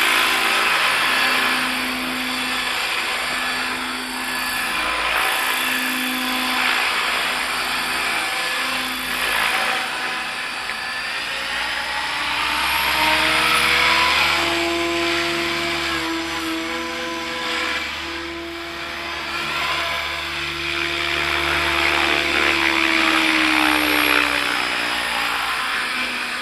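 ALZRC 505 electric RC helicopter flying: motor and gear whine with main-rotor noise. The tones are steady at first, then rise and fall in pitch from about halfway as the rotor speed changes.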